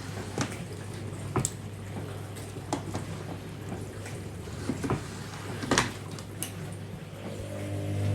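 Hoover DynamicNext washing machine in the main wash of a 60°C baby cycle: a steady motor hum under the drum's tumbling, with irregular clicks and knocks as the wet load turns and drops. A steady pitched tone joins the hum about seven seconds in.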